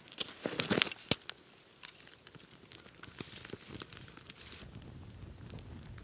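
Dry pine-needle tinder crackling as the flames catch and spread through it on a log, with a few sharp snaps in the first second and a low rush as the fire flares up near the end.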